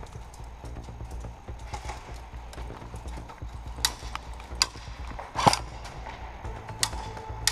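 Steady low rumble of movement and handling, then a handful of sharp pops about a second apart starting about halfway through, the loudest one in the middle of them.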